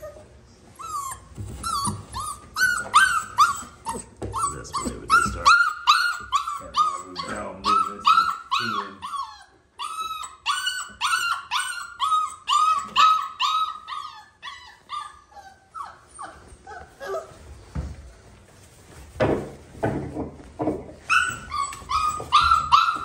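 Five-week-old Boerboel puppies whining and yipping: a run of short, high-pitched cries, two or three a second, that stops for a few seconds and starts again near the end.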